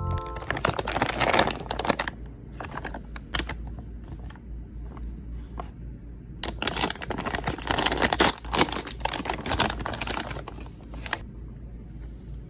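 Packaging crinkling and rustling as it is handled, in two stretches of dense crackle, one near the start and a longer one in the second half, over a low steady hum.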